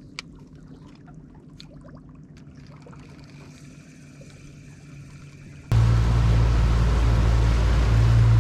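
Boat engine running steadily, cutting in suddenly and loudly about two-thirds of the way in, with water and wind noise over it. Before that there is only a faint low hum and a few light clicks.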